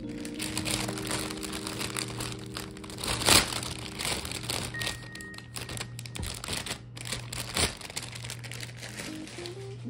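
Thin plastic produce bag crinkling and rustling as green bell peppers are handled and taken out of it, with one louder knock about three seconds in.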